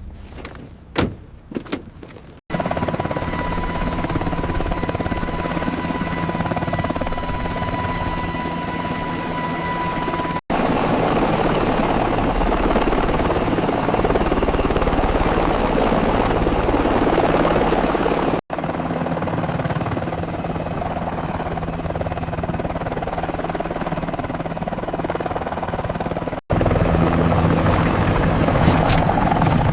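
Helicopter running steadily overhead, a continuous loud rotor-and-engine din. A few sharp knocks come in the first two seconds, and the sound cuts off abruptly and restarts three times, about every eight seconds.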